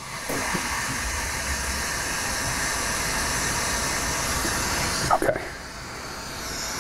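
Glassworking bench torch flame hissing steadily. The hiss dips for a moment about five seconds in, then carries on slightly lower.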